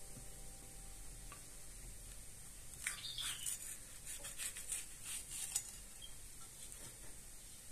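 A kitchen knife cutting through the crisp flesh and core of a raw red bell pepper: a run of sharp crunching cuts from about three seconds in to about five and a half seconds in.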